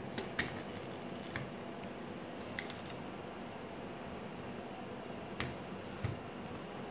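Scattered sharp clicks and taps from the plastic frame and parts of a Kyocera DK-5140 drum unit being handled and fitted together by hand, over a steady low hiss.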